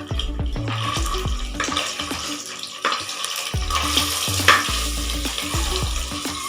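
Halved boiled eggs frying in ghee, a steady sizzle while a spoon stirs and turns them, with a couple of sharp knocks of the spoon against the pan. Background music with a low bass line plays under it.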